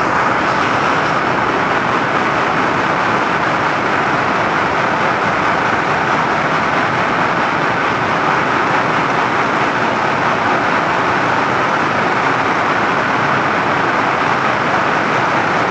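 Textile weaving loom running: a loud, steady mechanical din.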